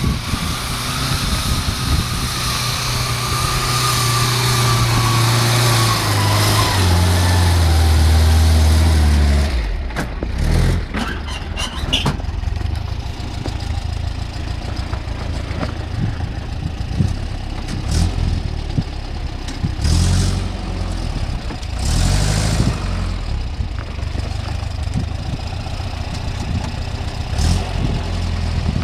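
Pinzgauer off-road truck's engine working hard up a steep hill, with a high whine that falls in pitch as the engine note drops, loudest as the truck draws near. About ten seconds in there are some crackling clicks, then the engine runs at low speed with brief surges of throttle as the truck crawls past.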